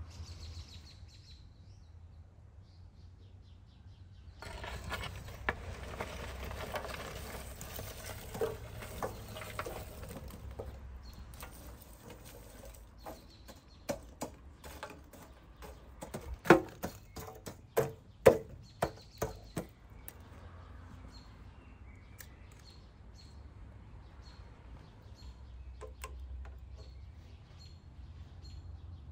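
Faint bird chirps over a low outdoor background. In the middle there are a few seconds of rustling, scraping noise, then a run of sharp knocks and clatters. The loudest two knocks come about two thirds of the way through.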